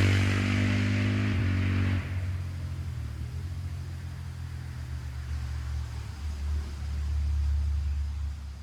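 A KTM 690 SMC-R's single-cylinder engine through a LeoVince Nero slip-on exhaust, heard moving away just after a flyby. Its note fades to a low rumble, swells briefly near the end, then dies away.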